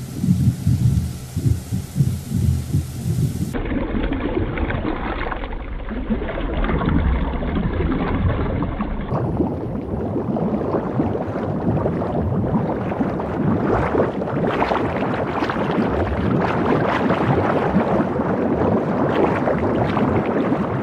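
Underwater ambience: a steady rumbling, gurgling water noise. Its tone changes abruptly about three and a half and nine seconds in, and it is thick with fine crackling in the second half.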